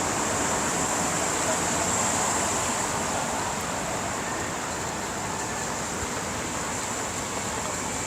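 Steady hiss of falling rain, an even wash of noise without distinct events.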